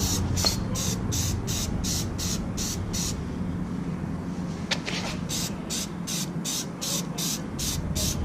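Electric Plasti Dip paint sprayer running: a motor hum under a rhythmic pulsing hiss, about three pulses a second, that stops for a couple of seconds midway and starts again, with a click or two. The sound is loud and not what the pump is supposed to make.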